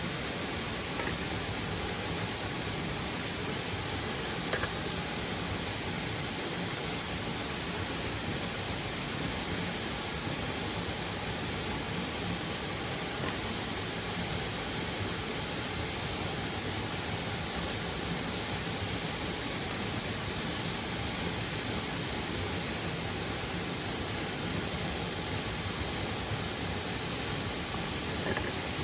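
Steady rush of a nearby waterfall and mountain stream, an even noise without let-up, with a few faint clicks early on.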